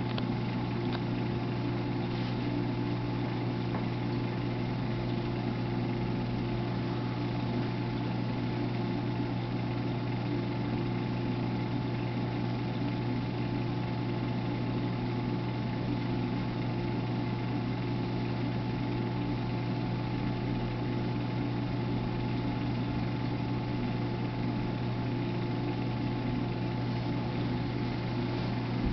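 Steady low hum of a reef aquarium's pumps and filtration equipment, with a faint hiss over it.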